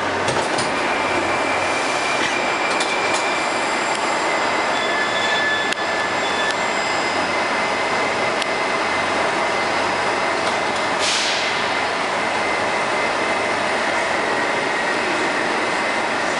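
Steady noise inside an 81-765/766/767 'Moskva' metro car standing at a platform, with thin high whining tones during the first several seconds and a short hiss about eleven seconds in.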